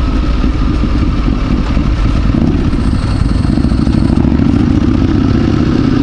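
Motorcycle engines running through city traffic: the rider's own bike mixed with the loud exhaust of a Harley-Davidson chopper riding just ahead. The engine note rises a little about halfway through.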